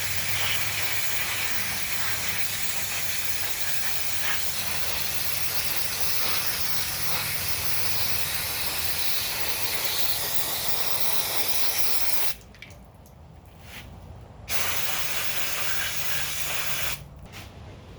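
A pressurised spray hissing steadily for about twelve seconds, stopping for two seconds, then hissing again briefly before cutting off. This is typical of a lawn mower carburetor being sprayed clean.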